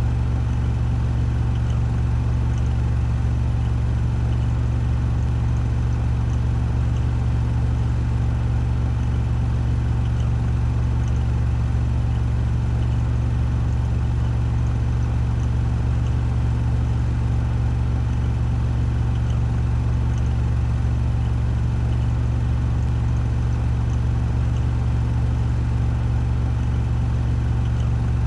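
Washing machine on its spin cycle, the drum turning at 1400 rpm with a steady low hum that does not change.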